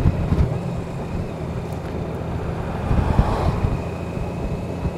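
Honda Gold Wing's flat-six engine running steadily while the motorcycle is ridden, with wind rushing over the microphone.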